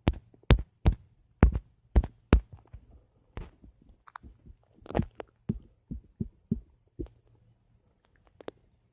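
Stomach gurgling as a series of sharp pops and clicks, about seven close together over the first two and a half seconds, then more scattered, with a short bubbly trill about four seconds in.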